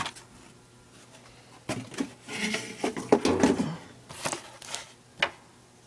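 Handling noises from a plastic DVD case and paper inserts being moved about on a wooden table: a cluster of knocks and rustles starting about two seconds in, then a few single taps near the end.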